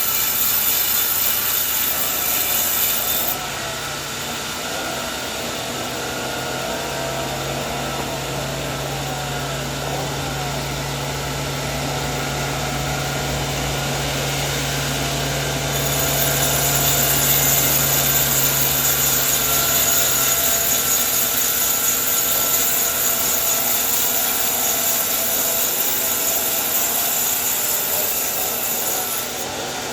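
Sawmill saw cutting coconut tree wood: a loud hiss of the blade in the wood for the first few seconds, a quieter stretch with the machine humming steadily, then a second long cut from about halfway until just before the end.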